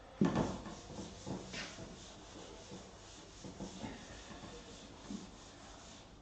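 Chalkboard duster wiping chalk off a blackboard in repeated rubbing strokes, with a single knock just after the start.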